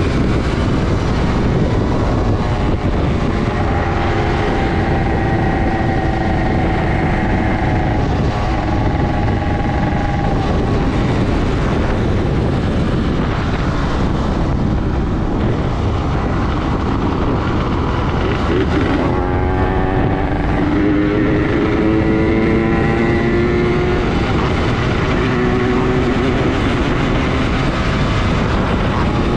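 Yamaha RD135 two-stroke single-cylinder engine running at road speed under heavy wind noise on the microphone, its pitch rising in long slow climbs as the bike accelerates.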